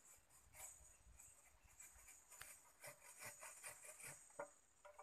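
Near silence, with faint scattered rustles and small clicks and a steady thin high hiss.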